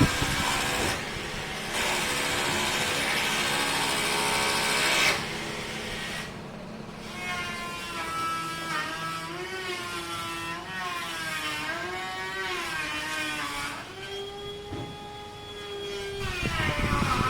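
Small electric power tool motor running, rushing for the first few seconds, then whining with its pitch wavering up and down as the load changes, and settling to a steadier tone near the end.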